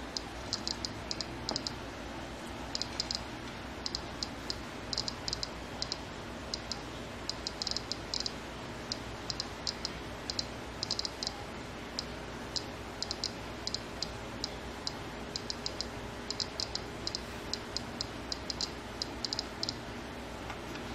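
Solid-state gamma radiation detector's buzzer clicking once for each detected gamma ray, at an irregular rate of several clicks a second, some in quick clusters, with a radioactive source on its sensor. The clicks stop near the end as the source is lifted away.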